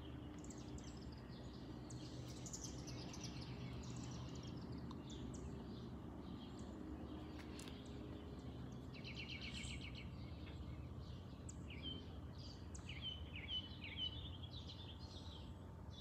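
Faint songbirds singing over a steady low background hum. A falling run of notes comes in the first few seconds, a fast trill about nine seconds in, then a string of short repeated chirps toward the end.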